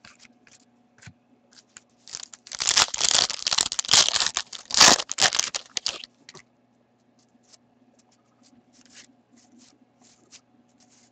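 A hockey card pack's wrapper being torn open and crinkled for about four seconds, starting about two seconds in. Before and after, soft clicks of cards being handled.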